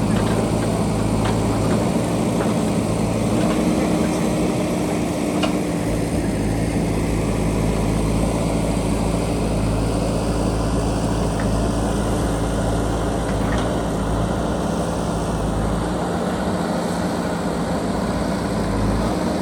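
JCB backhoe loader's diesel engine running steadily under work, with a few faint clicks.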